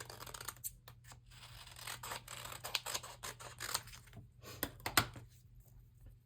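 Paper crafting pieces being handled: a quick run of crisp rustles, scrapes and snips, with the loudest pair about five seconds in, dying away shortly before the end.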